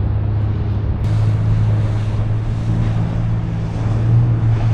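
Steady low drone of a large idling engine, one even hum with a faint noisy rush over it.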